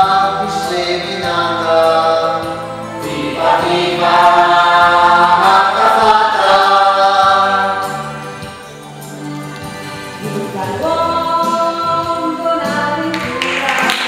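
A group of voices singing a song together in chorus, in long held notes, softer for a moment after the middle. Applause starts near the end.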